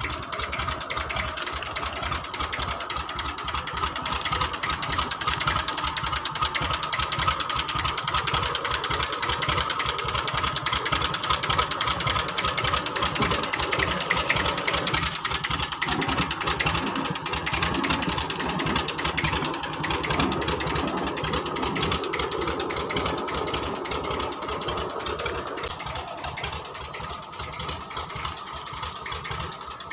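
Massey Ferguson 1035 DI tractor's three-cylinder diesel engine running steadily at idle with an even chugging beat, soon after a cold start from standing unused for a year.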